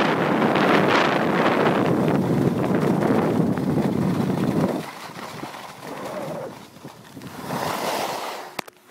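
Wind rushing over the microphone and skis hissing and scraping over packed snow during a fast downhill run; it drops off suddenly about five seconds in. Another short rush of wind and snow near the end, then a sharp click.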